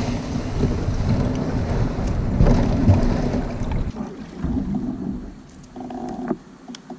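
Wind buffeting the microphone: a heavy, low rumbling noise that eases after about four seconds.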